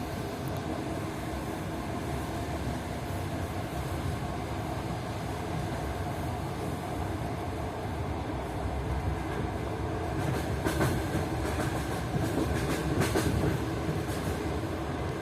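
Train wheels running on the rails: a steady rumble, with a few sharper clacks over rail joints about eleven and thirteen seconds in.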